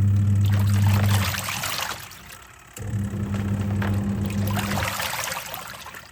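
Twin-tub washing machine agitating a load. The wash motor hums for about two seconds, stops, then starts again for another two seconds, and stops again near the end. Water sloshes and splashes in the wash tub while the motor runs.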